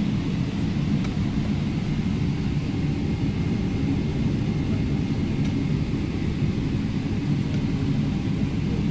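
Steady low rumble of a Boeing 777-300 airliner's jet engines and airframe, heard from inside the passenger cabin while the aircraft is on the ground.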